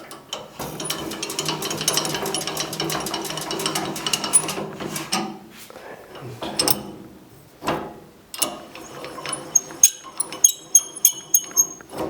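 Hand-cranked height and tilt mechanism of a restored Delta Unisaw table saw being turned: its gears whir and tick rapidly for about five seconds, working smoothly on freshly lubricated trunnions. A few knocks follow, then a run of sharp metallic clicks near the end.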